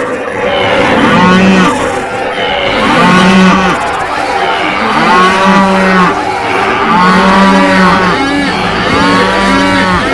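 Cattle mooing over and over, with several calls overlapping, one about every second, over a steady noisy din.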